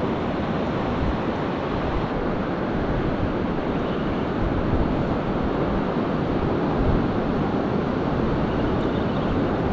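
Steady wind rushing over the microphone, mixed with the wash of surf breaking on the beach.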